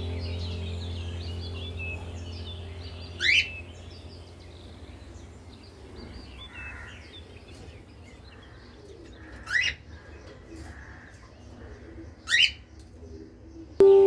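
Caged Gouldian finches chirping softly, with three loud, quick upward-sweeping calls spaced a few seconds apart. Background music fades out in the first seconds, and new chiming music starts just before the end.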